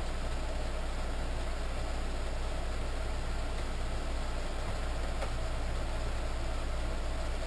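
Harbor Freight 7x10 mini lathe running at a steady speed, a constant motor hum.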